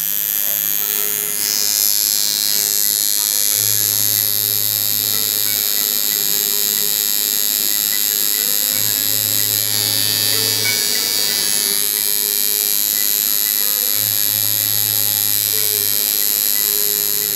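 Coil tattoo machine buzzing steadily as it runs needles into skin.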